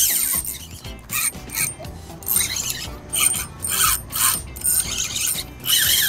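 Spinning reel being cranked in while playing a hooked fish, its gears giving short, repeated whirring strokes, about two or three a second.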